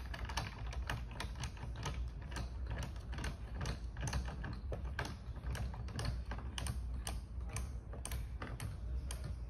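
Thule EVO Clamp roof-rack foot being tightened with its tensioning tool: a run of quick, uneven clicks, several a second, as the tensioning screw is turned during the first round of tensioning.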